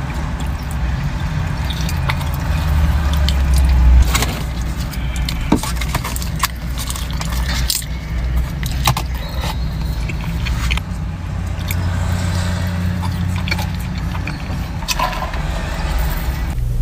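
Close-up eating sounds: chewing fried food dipped in ranch, with wet mouth clicks and crackles, and a sip through a drinking straw near the end. Under it runs a steady low rumble from the car.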